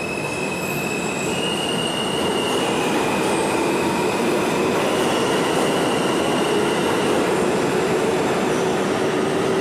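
Subway train running through the station: a dense steady rumble with a high metallic wheel squeal on top that steps up and down in pitch a few times. It grows louder over the first few seconds, then holds.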